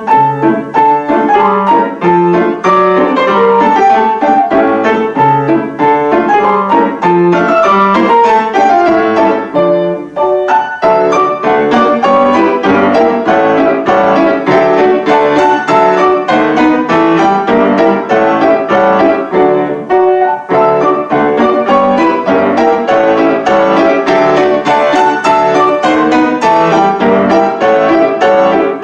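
Piano duet: two players at the keyboard playing a lively classical piece in a steady stream of quick notes, with a short breath in the music about ten seconds in.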